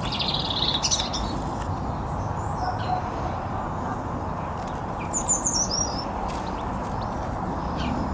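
Small birds chirping: a short cluster of chirps at the start, then a quick run of high, falling notes about five seconds in, over a steady low background rush.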